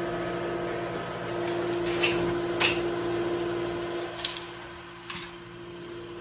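Steady mechanical hum from a running motor, with a few sharp knocks about two, two and a half, four and five seconds in; the hum drops a little after about four seconds.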